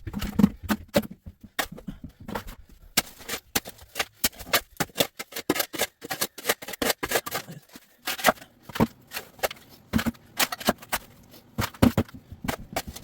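Irregular clatter and scraping of broken concrete and gravel being dug out of a trench in a basement floor: many sharp knocks and clicks, none steady, with no machine running.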